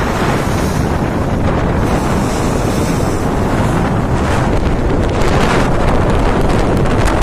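Strong wind buffeting the microphone, a steady loud rush, over the wash of rough sea past a passenger ferry under way.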